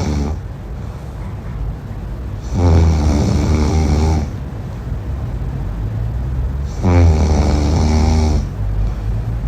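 A person snoring, with loud drawn-out snores about every four seconds, each lasting nearly two seconds.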